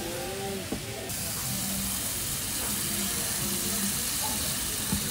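Cabbage and meat stir-fry sizzling on a hot iron serving platter: a steady hiss that starts suddenly about a second in.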